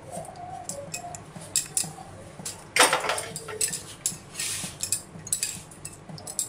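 Cookware clatter: a wooden spatula scraping and knocking as curry is served from a kadai into a serving bowl, with one loud metal clank a little under three seconds in.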